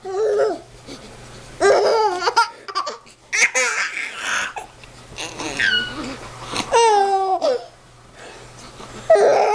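A baby laughing in about six bouts of giggles and squeals, with short pauses between them.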